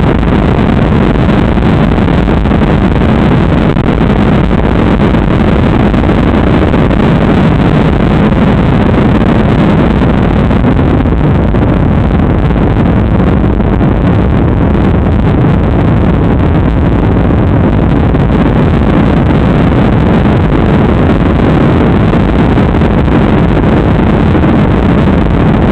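Ryanair jet airliner's engines running at takeoff power: a loud, steady roar that does not change for the whole stretch.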